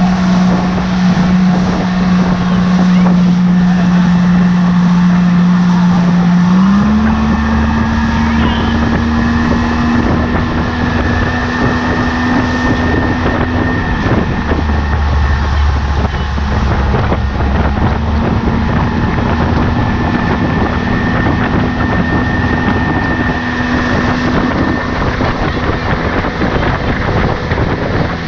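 Outboard motor running at speed, with water rushing in the wake and wind on the microphone. The engine's pitch steps up slightly about seven seconds in and then holds steady.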